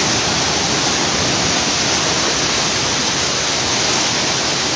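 Heavy tropical downpour: a loud, steady rush of rain pouring down onto a flooded street.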